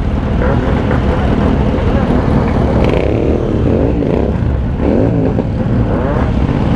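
Several motorcycle engines running at low speed in a slow-moving group, their pitch rising and falling as the throttles are worked.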